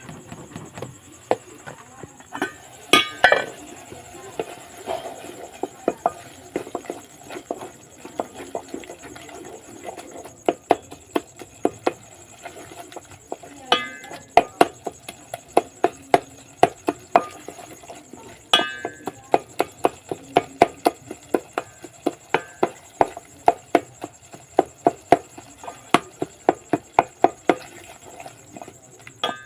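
Knife chopping food on a board: a long run of sharp, even strokes about two a second, sparse at first and then almost unbroken, with brief pauses.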